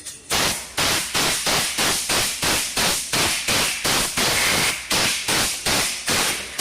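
Short blasts of compressed air from an air tool fed by a homemade air-conditioner-compressor air compressor, repeated about twice a second, each starting sharply and dying away quickly.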